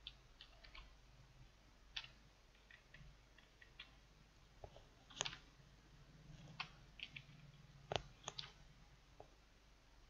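Faint, irregular clicks of computer keyboard keys being typed, a few strokes at a time with pauses between.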